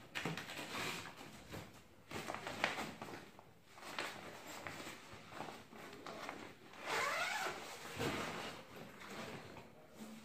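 Zipper of a padded ukulele gig bag being worked open, with rustling and handling of the bag's fabric; a longer zip pull about seven seconds in.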